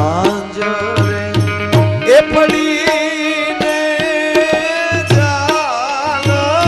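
Live Gujarati folk music: tabla playing a steady rhythm over a held accompanying note, with a voice starting a sung melody about two seconds in and wavering on its long notes.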